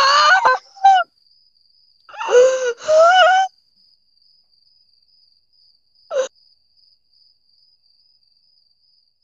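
A woman's anguished wailing and sobbing, with high, wavering cries in several bursts over the first three and a half seconds, then one short cry about six seconds in.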